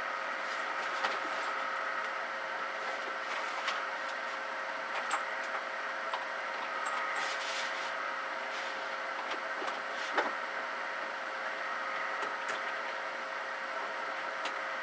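Steady whir of the Ten-Tec Titan II linear amplifier's cooling blower, with a faint steady tone, and scattered small clicks and knocks of cables being handled behind the equipment.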